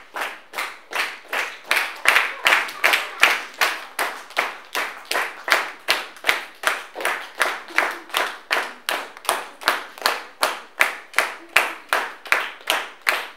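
Hands clapping together in a steady rhythm, about three claps a second.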